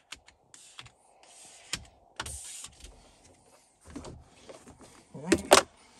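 Plastic squeegee card scraping in short strokes across a wet screen protector on a touchscreen, pushing out the soapy water, with a loud squeak near the end.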